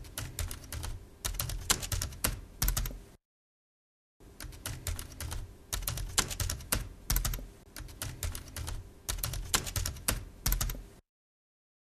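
Computer keyboard keys clacking in fast, irregular runs of typing. The typing stops for about a second about three seconds in, then runs on and stops about a second before the end.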